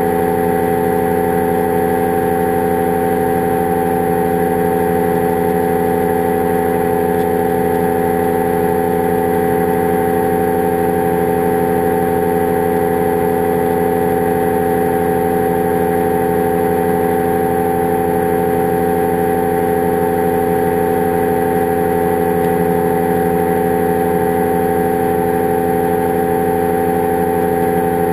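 Powered parachute's engine and pusher propeller running steadily in cruise flight: one unchanging drone with no rise or fall in pitch.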